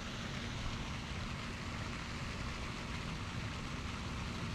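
Steady outdoor background noise, an even hiss with a faint low hum underneath and no distinct events.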